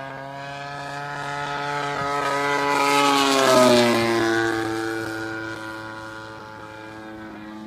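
Desert Aircraft DA-60 single-cylinder two-stroke gas engine and propeller of a 91-inch radio-control Extra aerobatic plane at wide-open throttle on a low pass. The engine note grows louder as the plane approaches, peaks a little over three seconds in, then drops in pitch and fades as it flies away.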